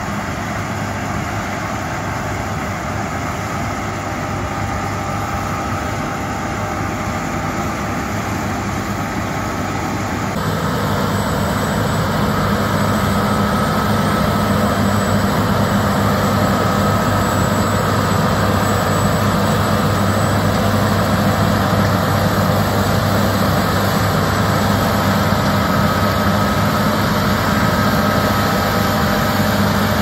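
John Deere S790 combine harvester running under load while harvesting wheat: a steady engine hum with a thin high whine over it, getting louder about ten seconds in as it passes close by.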